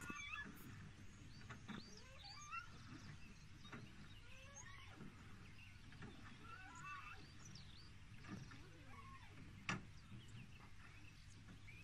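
Faint outdoor quiet by water, with scattered short chirping animal calls over a low steady hum and a single sharp click near the end.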